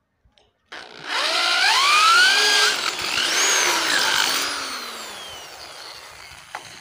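Corded electric drill boring into a steel C-channel purlin: the motor's pitch rises as it spins up, it runs hard through the middle, then its pitch falls as it winds down over the last couple of seconds.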